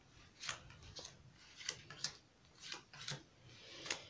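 Playing cards being dealt one by one from a deck onto a table, each card making a faint, sharp snap as it is flicked down, roughly two a second at an uneven pace.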